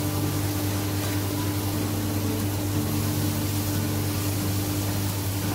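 Steady low machine hum with a constant higher tone and an even airy hiss over it, unchanging throughout.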